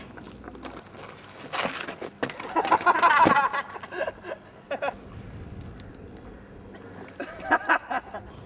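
Short bursts of high-pitched human voice without words, loudest about three seconds in and again near the end, with a few knocks a little before.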